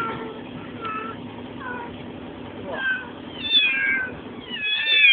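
Kittens meowing: a string of about six short, high calls, each falling in pitch, coming closer together and overlapping near the end, over a low steady hum.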